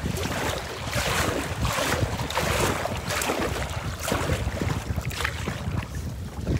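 Strong wind buffeting the microphone over choppy lake water, with water splashing and slapping against a kayak's hull about once a second.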